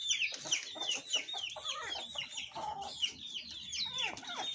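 Chickens clucking and chirping: a steady run of quick, high, falling chirps, several a second.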